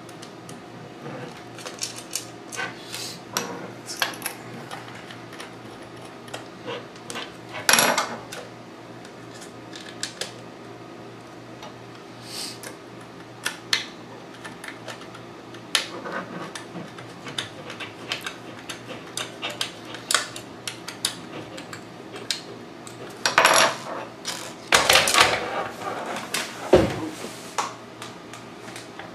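Small metal screws clicking and clinking against a thin metal device casing as they are handled and fitted into the hard-drive mounting holes. Scattered sharp ticks run throughout, with a louder clatter about eight seconds in and several more near the end.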